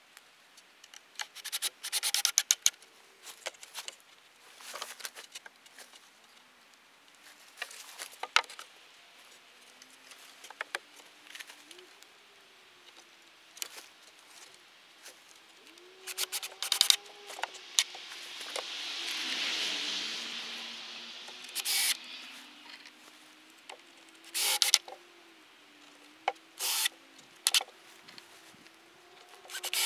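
Pre-cut wooden boards being handled during building work: irregular clacks and knocks with short stretches of scraping and rubbing. A broad rushing noise swells and fades about two-thirds of the way through.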